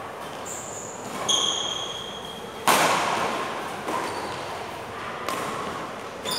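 Badminton rally: rackets striking the shuttlecock about five times, roughly every second and a quarter, the loudest hit about two and a half seconds in, each with a short echo off the hall. High squeaks of sneakers on the court floor come in the first half.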